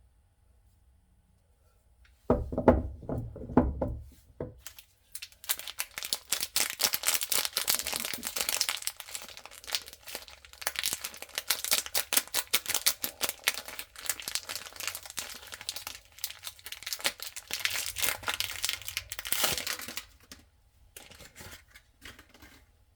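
A packaged bar of soap being unwrapped by hand. The wrapper crinkles and tears in a dense crackle for about fifteen seconds. This follows a couple of seconds of low bumping as the pack is handled.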